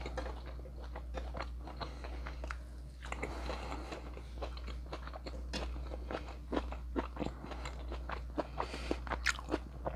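A person chewing grilled steak kebab and vegetables close to a lapel microphone, with frequent wet mouth clicks and smacks that grow more frequent in the second half. A steady low hum runs underneath.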